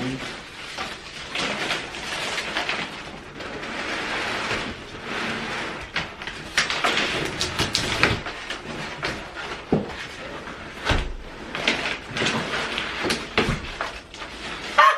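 Packaging being handled and pulled off a new mini refrigerator: a busy run of scraping and rustling with many sharp clicks and knocks.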